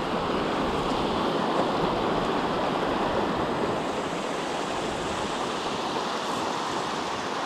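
Shallow river running over a stony bed in small rapids: a steady rush of flowing water.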